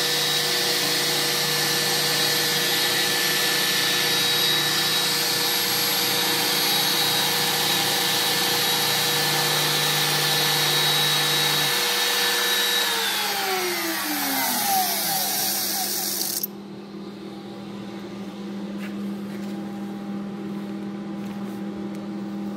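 Bosch 1 hp trim-router spindle of a small hobby CNC router running at speed with a steady whine. It is switched off by hand at the end of the job about two-thirds of the way through and winds down in a falling whine. A few seconds later a steady hiss cuts off suddenly, leaving a low hum.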